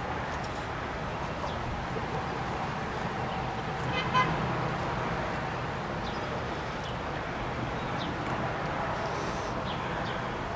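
Residential street ambience with a steady traffic hum, and a short car horn toot about four seconds in. Faint high chirps come and go.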